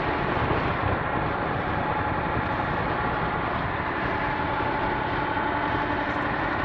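Steady cabin road noise inside a 2014 Ford Econoline E-250 van cruising on the highway: engine and tyre drone at an even level.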